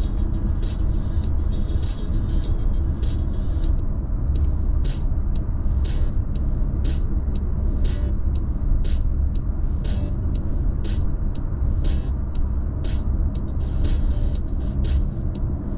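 Steady low road and engine rumble inside a Mazda's cabin at freeway speed, under background music with a sharp beat about once a second.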